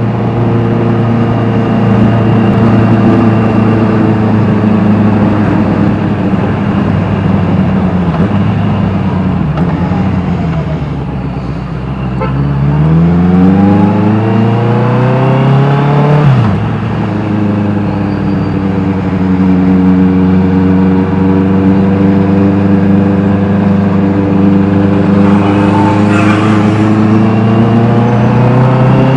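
Honda CBR 650R inline-four engine through an Austin Racing exhaust, under way on the road. It holds a steady note, then falls off about ten seconds in. After that it revs up steeply for a few seconds and drops sharply, as on a gear change, then settles back into a steady, slowly rising note.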